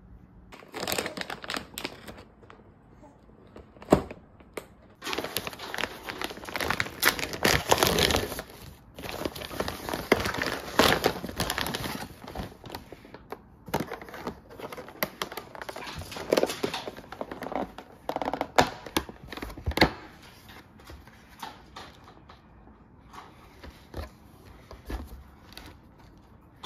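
Plastic takeout packaging crinkling and rustling in irregular bursts as it is handled and unwrapped, with sharp clicks and knocks from a clear plastic takeout container and its lid.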